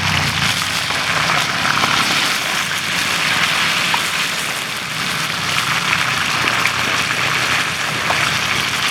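Chicken frying in hot oil: a steady, dense sizzle.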